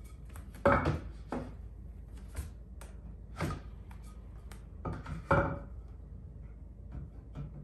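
Scattered knocks and clunks of wooden 2x4 framing pieces being handled, about half a dozen separate short hits spread over several seconds.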